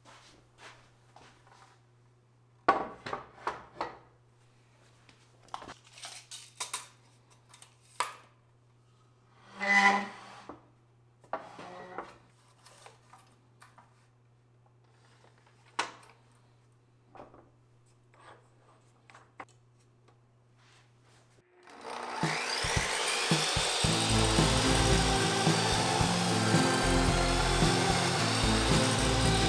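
Scattered knocks, clicks and short scrapes of wood and tools being handled over a steady low hum. About two-thirds of the way through, background music with a steady beat comes in and covers them.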